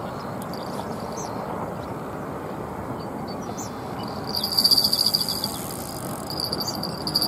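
An insect trilling in two high, rapidly pulsing bursts, the first about four seconds in and the second near the end, over a steady background hiss.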